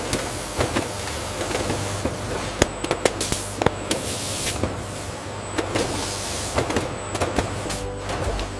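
Robotic packaging-line machinery running: a steady low hum under an even hiss, with scattered sharp clicks and clatter.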